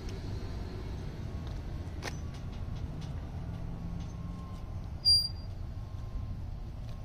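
Advance Lifts Model 2500 hydraulic scissor lift table lowering, with a steady low hum. A brief, sharp, high squeak is the loudest sound, about five seconds in.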